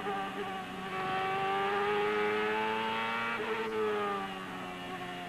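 Champ car's turbocharged V8 racing engine running at high revs; its pitch climbs slowly, then falls off over the last couple of seconds as the car slows.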